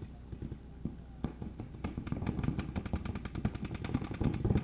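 Paintball markers firing: a few single shots, then from about two seconds in rapid strings of pops, many a second, that keep going.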